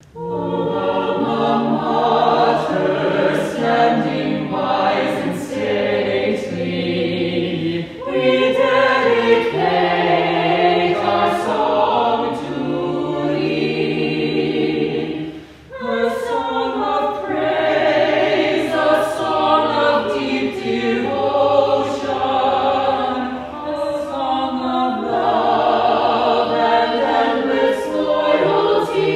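A choir singing, many voices holding chords that change from phrase to phrase, with a brief break between phrases about halfway through.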